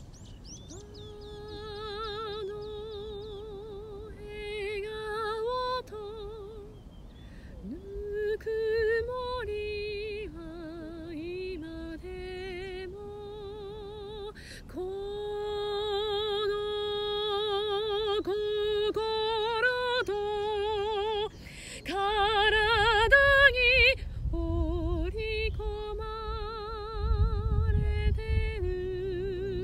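A trained female soprano voice singing a slow song in long held notes with a wide, even vibrato, phrase after phrase with short breaths between them.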